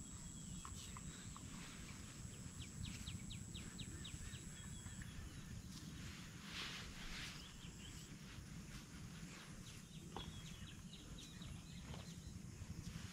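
Rural outdoor ambience: birds chirping in short rapid series over a steady, high, thin insect-like tone that stops about five seconds in, with a low steady rumble and a couple of brief rustles.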